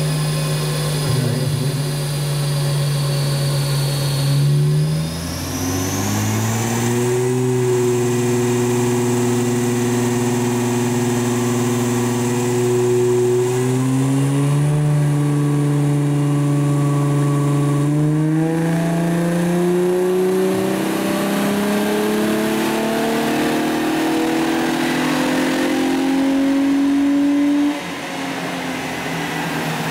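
Holden Commodore's engine running on a rolling-road dyno, its wheels driving the rollers. It holds a steady pitch, steps up in revs twice, then climbs steadily in a long full-throttle pull and cuts off suddenly near the end as the throttle is lifted.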